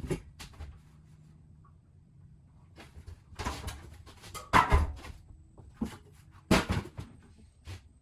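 Knocks and clatter of objects being handled and set down, with a few sharp bangs, the loudest about halfway through and again near two-thirds in.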